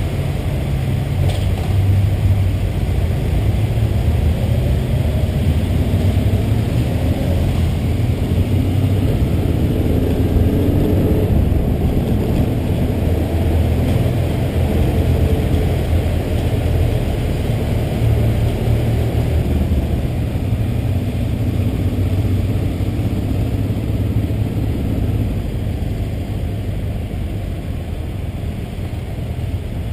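Steady low rumble of a car engine and road noise, the engine note rising and falling gently.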